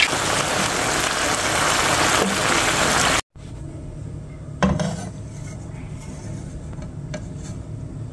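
Whole sea bream frying in oil and tomato sauce in a nonstick pan, with a loud, dense sizzle. About three seconds in it cuts off abruptly, and a much quieter simmer of the sauce follows, with a couple of short knocks against the pan.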